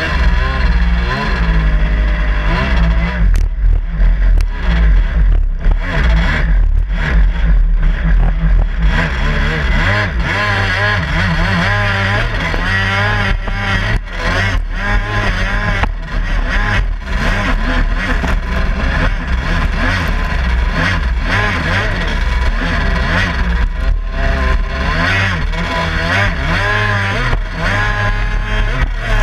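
Yamaha 61X 701 two-stroke twin, breathing through an expansion-chamber exhaust, driving a Kawasaki X2 stand-up jet ski at speed. The revs keep rising and falling as the craft hops across the water, with spray splashing over the hull.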